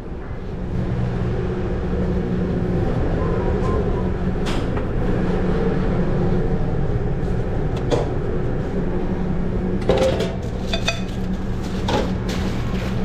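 Busy restaurant kitchen: a steady low equipment hum with occasional knocks and clatter of pans and utensils, a cluster of them about ten seconds in.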